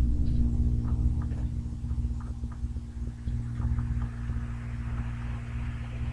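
Steady low mechanical or electrical hum made of several fixed tones, with a faint hiss that grows louder about four seconds in and a few faint ticks.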